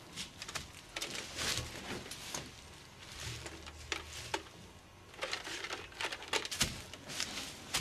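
Dry leaves, twigs and brush rustling and crackling irregularly as a man pushes and crawls through undergrowth.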